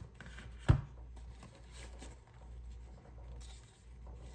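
Tissue paper wrapped around the arms of new sunglasses rustling and crinkling as they are handled, with one sharp knock under a second in.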